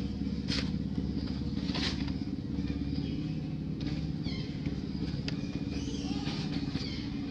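A steady low engine rumble runs throughout, with a few short clicks and faint high chirps about four seconds in and again near the end.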